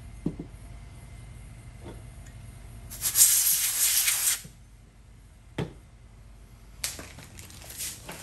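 Light knocks of tools and supplies being handled at the workbench, with a loud burst of hissing, rattling noise about three seconds in that lasts about a second and a half.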